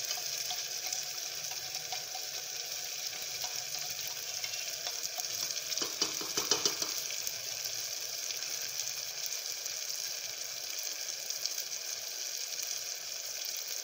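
Onions frying in hot oil in a pan, a steady sizzle, with a short clatter of stirring about six seconds in.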